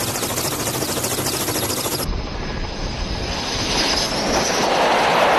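Rapid rotor chop of a Kamov coaxial-rotor helicopter in flight. About two seconds in it cuts abruptly to the rushing roar and high whine of a carrier fighter jet's engines, growing louder as the jet lands on the deck.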